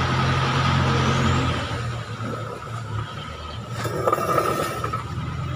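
A road vehicle's engine running steadily with a low hum, then dying away about one and a half seconds in, leaving quieter street noise with a couple of light clicks.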